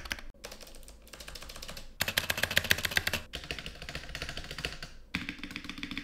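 Rapid key presses on mechanical keyboards, switching from one board to another: a custom board with lubed Gateron Ink Black V2 linear switches, a louder, brighter run of clacks from about two to three seconds in, and near the end a deeper clacking from a board with Holy Panda tactile switches.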